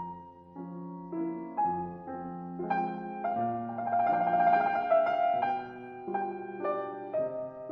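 Background instrumental music led by piano, with held chords and a melody changing notes about twice a second, swelling slightly louder around the middle.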